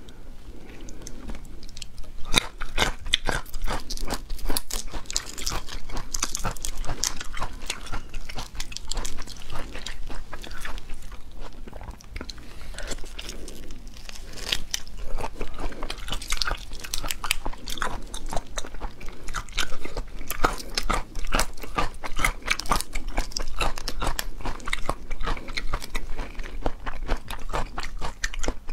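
Close-up eating sounds of cooked whole shrimp being bitten and chewed: a dense run of crisp crunches, crackles and wet chewing.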